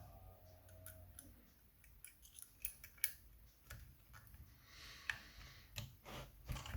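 Faint, scattered light metallic clicks and scrapes of lever-lock picking tools, a pre-lift and a wire, being handled and fitted into the keyhole of a Chubb 3G107 seven-lever lock.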